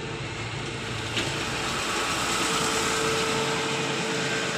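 Steady machinery hum over a broad hiss that grows a little louder about two seconds in, with a single click about a second in.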